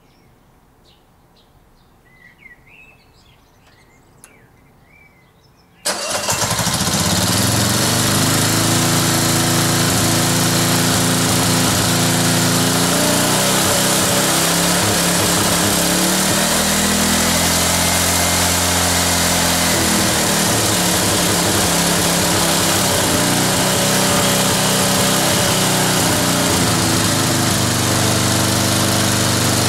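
Quiet at first, then the Tecumseh petrol engine of a ride-on mower starts abruptly about six seconds in and keeps running steadily and loudly. Between about 14 and 20 seconds its speed drops and then climbs back. Its centrifugal governor is broken, so the engine runs at full throttle unless it is held back by hand.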